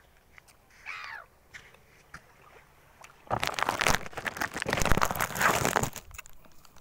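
A short gull call about a second in, then loud rustling and scraping from about three seconds to six seconds as the phone is handled against clothing.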